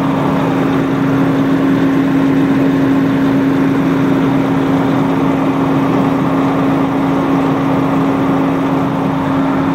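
Mack dump truck's diesel engine idling steadily with a constant hum, heard up close under the cab.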